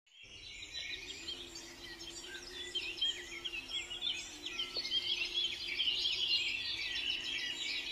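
Many small birds chirping and twittering together in a dense, continuous chorus, fading in over the first second, with a faint low steady hum underneath.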